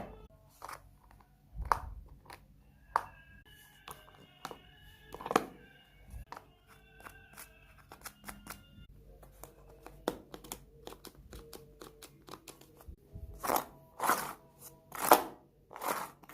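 Irregular small clicks and snaps of fidget-board toys being worked by hand, with faint music holding steady tones beneath them for the first half. Louder raspy scraping sounds, each about half a second long, come several times near the end.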